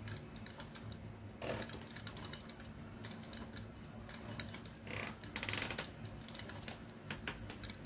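Honda VFR800 clutch basket turned by hand, its damper springs shifting in their slots with light irregular metallic clicking and rattling, and a quicker run of clicks about five seconds in. The rattle comes from the springs moving back and forth in their seats.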